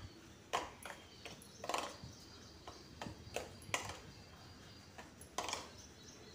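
Metal spoon scraping and clinking against a stainless steel bowl while stirring semolina and yogurt into a thick batter, in short irregular strokes with a gap of over a second before the last ones.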